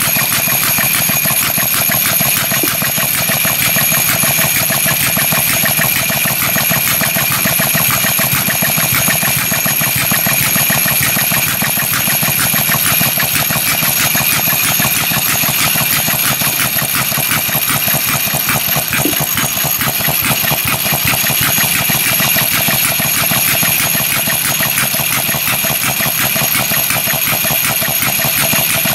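Scale-model Associated air-cooled hit-and-miss gas engine running steadily with a rapid, even beat of strokes. It is a new engine being broken in.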